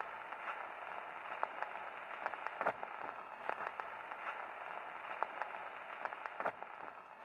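Faint crackling static: a steady thin, tinny hiss peppered with irregular pops and clicks, like an old radio or record-surface noise.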